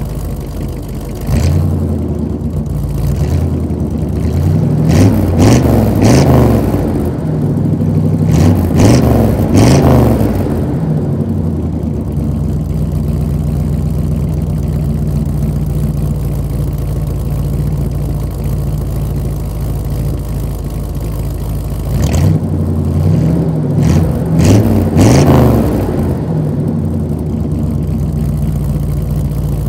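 1986 Chevy C-10 pickup's engine heard from the exhaust end, idling steadily and revved in a run of quick throttle blips about five seconds in and again about 22 seconds in, dropping back to idle after each.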